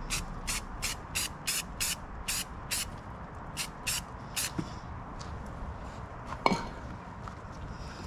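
Aerosol spray-paint can sprayed in about eleven short hissing bursts over the first four and a half seconds. One sharp knock follows about six and a half seconds in.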